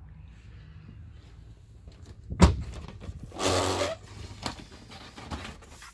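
Pleated vinyl accordion-style folding door being handled: a sharp knock about two and a half seconds in, then a short rustling slide as the pleats fold, with a few light clicks after.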